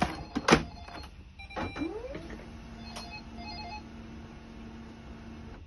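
An HP Laser MFP 137fnw laser printer being closed up with a couple of clicks, then its motor spinning up with a rising whine and running as a steady hum while the printer warms up, with a few short high chirps in the middle.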